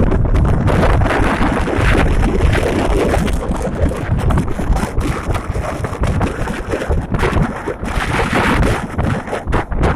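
Wind buffeting the microphone over the rush of big ocean waves, steadier at first and gustier from about halfway through.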